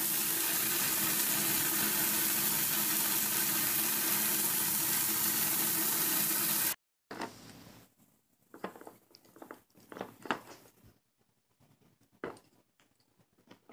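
Shower spray running, a steady even hiss, that cuts off suddenly after about seven seconds. Then faint, scattered clicks and taps.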